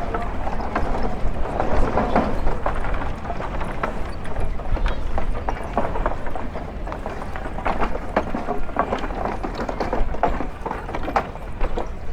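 Footsteps on hard pavement: a quick, uneven run of clicks over a steady low rumble.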